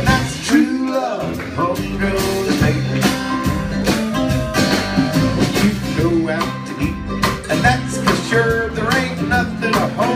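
Small country band playing live: acoustic guitar and upright bass under a melodic lead line, an instrumental break between sung verses.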